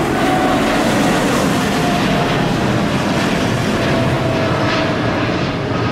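Twin turbofan engines of a Boeing 787-9 Dreamliner climbing out after takeoff. A loud, steady jet rush with faint whining tones that drift slightly lower in pitch.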